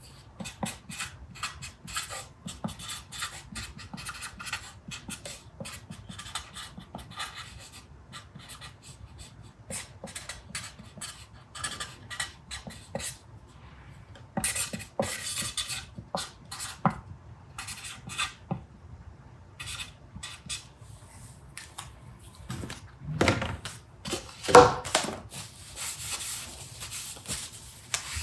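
Hand work at a bench: scattered light clicks, taps and scraping as wooden pieces and metal tools are handled and set down, with two louder knocks near the end.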